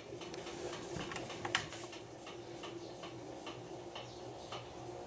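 Electrolux LTE06 6 kg washing machine running on its spin cycle: a steady low hum with light, regular ticks about twice a second.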